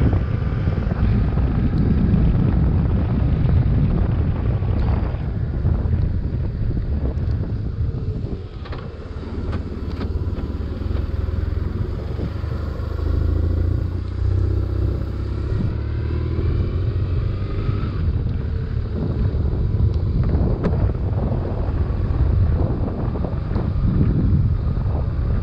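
BMW R1150RT motorcycle's boxer twin engine running as the bike rides along, mixed with wind rushing over the microphone and tyres hissing on the wet road. The sound drops for a moment about a third of the way in, then picks up again.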